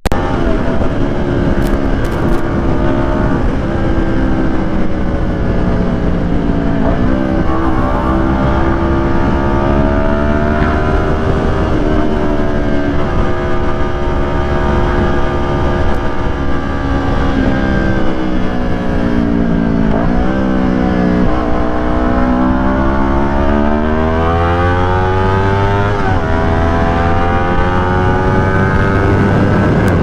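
Kawasaki Ninja 400's parallel-twin engine through a Yoshimura R11 full-system exhaust while riding. The pitch climbs under throttle and drops at each gear change, with a long climb about two-thirds of the way through, over steady wind and road noise.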